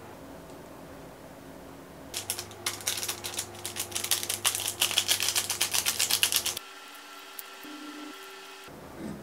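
Powdered seasoning being shaken out of a small packet onto corn dogs. It is a quick run of rattling taps that starts about two seconds in and lasts about four seconds.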